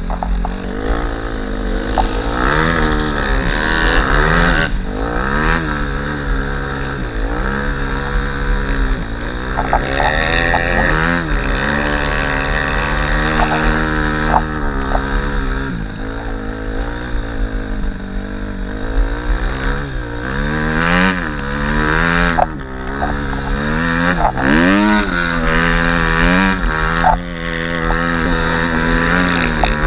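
Dirt-bike engine of a snow bike, revved up and eased off again and again as it is ridden, its pitch climbing and dropping many times.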